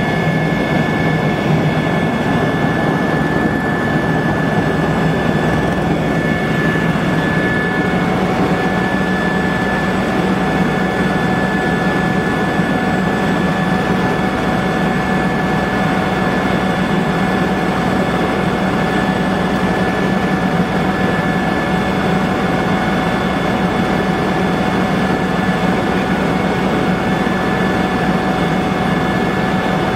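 Cabin noise of a Eurocopter EC120 Colibri helicopter in flight: its Turbomeca Arrius turboshaft and rotors make a steady drone with several high, steady whining tones. A further lower whine joins about eight seconds in.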